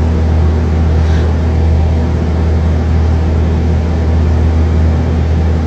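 A steady low mechanical hum that holds an even level and pitch throughout.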